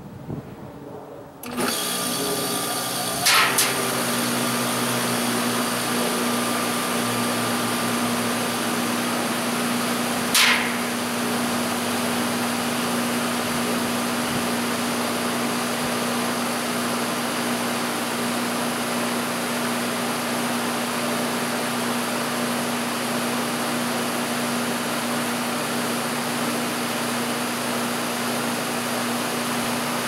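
Goodman packaged heat pump starting up in heat mode in very cold weather: about a second and a half in it kicks on suddenly, then runs steadily with a low hum under the rush of the outdoor fan. Two short louder noises come about three and ten seconds in.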